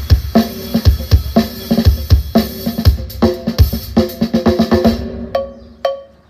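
Drum-heavy music played loud through an 18-inch subwoofer speaker cabinet: a hard kick drum about once a second under a dense drum-kit pattern. Near the end the beat drops out to a few sparse hits.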